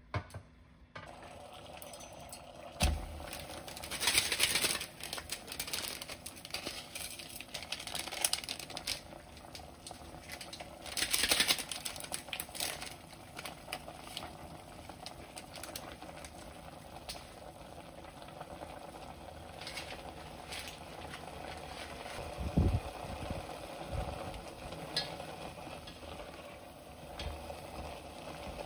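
Water boiling in a pot around a block of instant ramen noodles, with occasional knocks and rustling as the soup packet is added and the noodles are worked with chopsticks.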